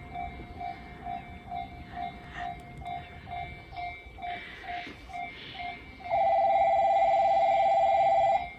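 Railway level-crossing warning bell pulsing about two and a half times a second as the train approaches. About six seconds in, a much louder continuous ringing alarm bell starts, the station's approaching-train warning, and cuts off about two seconds later.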